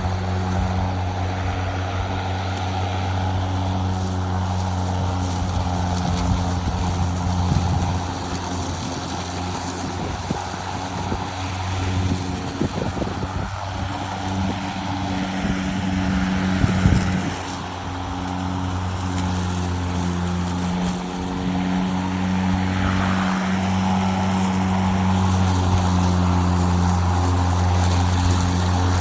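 EGO POWER+ cordless electric self-propelled lawn mower running while mowing grass: a steady low hum from the spinning blade over a rushing noise, briefly dipping about two thirds of the way through.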